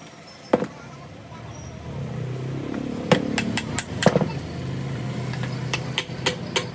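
Sharp metallic taps, in short quick runs, from work on an air-cooler motor during a bearing change. Under them a low hum comes in about two seconds in, rises in pitch, then holds steady.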